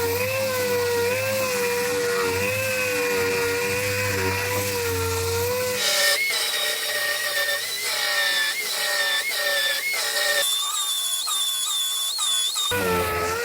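Power tool running with a steady high whine whose pitch wavers and dips again and again as it is loaded. The sound changes abruptly a few times, as between separate clips.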